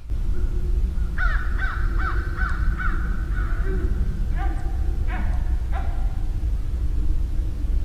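Field recording of harsh, repeated animal calls: a quick run of about six, then a few more a second or so later, over a steady low rumble of outdoor background noise. The recordist takes them for a sasquatch answering another.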